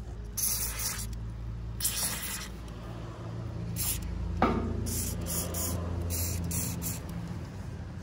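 Aerosol can of penetrating oil sprayed through its red straw onto a rusted, seized blower-wheel hub and motor shaft in several short hissing bursts, the first two about half a second long and the rest quicker. About halfway through there is a single sharp knock, the loudest sound.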